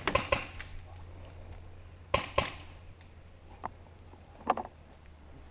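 Paintball marker firing: a quick burst of about four sharp pops at the start, two more about two seconds in, then two fainter pops later.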